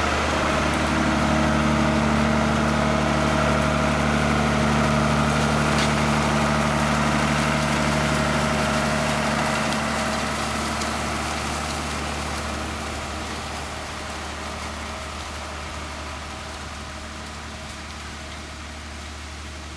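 Fendt Farmer 311 LSA Turbomatik tractor's diesel engine running steadily while pulling a Kuhn GF 502 rotary tedder, close by at first and then fading away over the second half as the tractor draws off.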